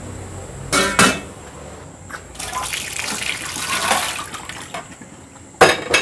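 Two sharp clatters of kitchenware about a second in, then water running at a stainless steel kitchen sink for about two seconds, and another clatter of dishes near the end.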